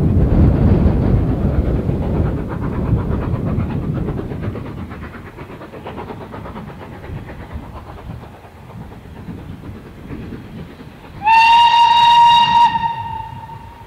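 Steam locomotive whistle: one steady high blast of about a second and a half, about eleven seconds in, trailing off afterward. Before it, a low rumble dies away over the first five seconds.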